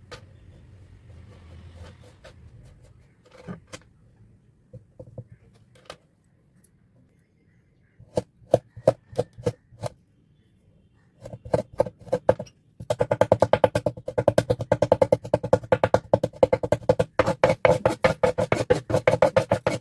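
A knife chopping rapidly through kinetic sand, its blade clicking on the tray beneath. It begins with a few soft scattered taps, then short quick runs of chops, and from about halfway in a steady fast chopping of roughly eight to ten strokes a second.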